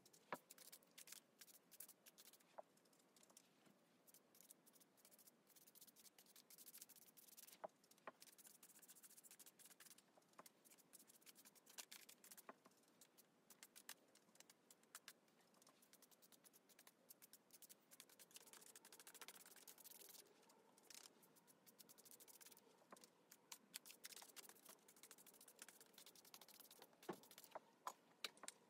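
Faint scratching and light clicking of a small chip brush worked dry over a painted sketchbook page and dabbed at the paint palette, heard against near silence.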